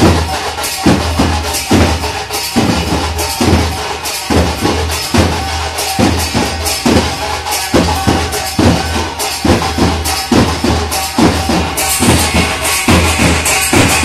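Donka kirtan: a large double-headed donka barrel drum beaten in a fast, steady dance rhythm, about two or three strong strokes a second, under a constant bright metallic jangle that grows louder near the end.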